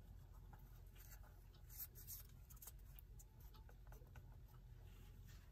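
Faint scratching and small clicks of a screwdriver prying a clock hand off its shaft, worked over a cardboard shield laid on the dial, with a low steady hum beneath.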